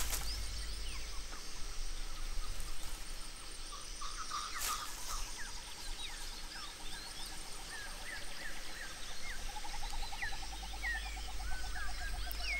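Forest ambience of many small birds chirping and whistling in short calls, with one sharp click about a third of the way in. A fast pulsing trill joins in the second half.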